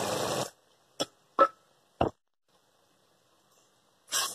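Pot of thick curry gravy bubbling and stirred with a wooden spatula: a burst of hiss in the first half-second, then a few short separate plops and knocks about a second apart, the last just before the end.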